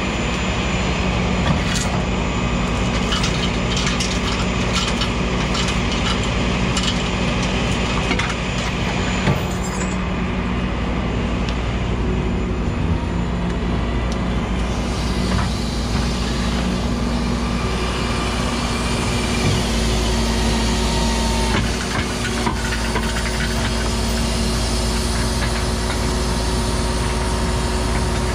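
Rollback flatbed tow truck's engine running steadily at idle, with scattered clicks and knocks in the first ten seconds. A steady hiss joins about halfway through.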